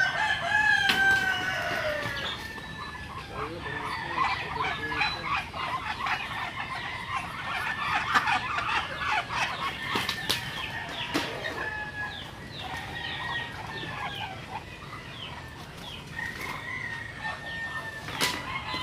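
Backyard poultry calling: one long call falling in pitch near the start, then a steady run of short, high peeping calls, with a couple of sharp knocks about ten and eighteen seconds in.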